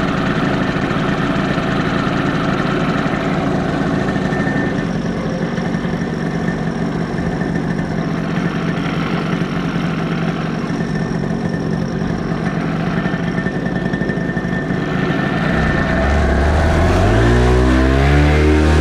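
Paramotor engine and propeller running steadily at low throttle, then throttled up about sixteen seconds in, the pitch rising and the sound growing louder.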